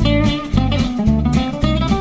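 Background music led by a guitar playing a melody over a bass line.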